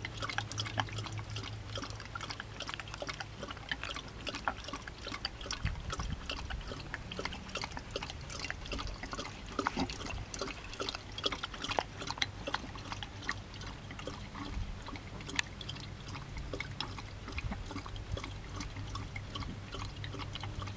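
Dog lapping water from a plastic watering can, muzzle in the filler opening: a fast, uneven run of wet laps and clicks.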